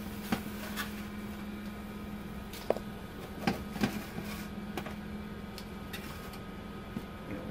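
Scattered light clicks and taps of a metal turner and fingers on a metal sheet pan as roasted tofu and vegetable pieces are picked off, over a steady low hum.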